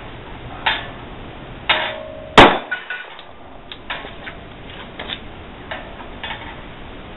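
A .45 ACP semi-automatic pistol firing one loud, sharp shot about two and a half seconds in. Several much fainter sharp knocks come before and after it.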